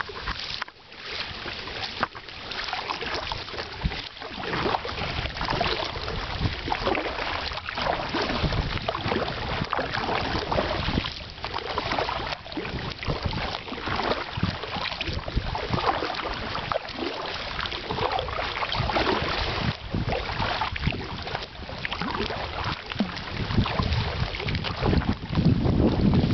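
Double-bladed kayak paddles dipping and splashing in river water, stroke after stroke, with wind rumbling on the microphone, heavier near the end.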